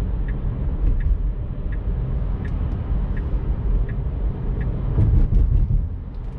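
Road and tyre noise inside a Tesla Model 3's cabin as the electric car speeds up on the freeway: a steady low rumble with no engine note. A soft tick repeats about every 0.7 seconds, and a quick run of clicks comes about five seconds in.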